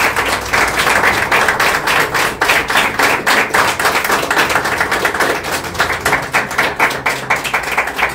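A small group of people clapping, a dense, irregular patter of individual hand claps that goes on without a break.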